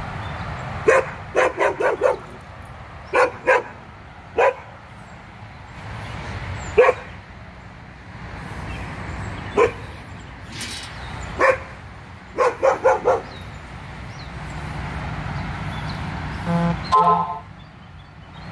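A dog barking off and on, single barks and quick runs of three or four, with a steady low rumble underneath.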